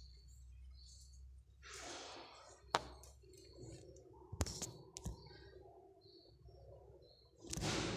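A few sharp clicks and two breathy exhales, with a faint low hum between them.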